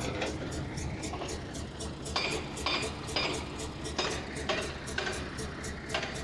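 Heavy machinery running with a steady low rumble, with about six sharp metallic clanks at irregular intervals of half a second to a second, from about two seconds in.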